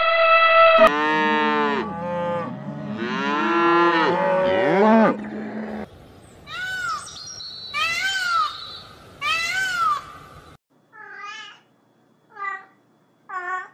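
A string of animal calls: an elephant's trumpet cuts off about a second in, then cattle mooing, then three loud rising-and-falling peacock calls, and near the end a cat meowing several times.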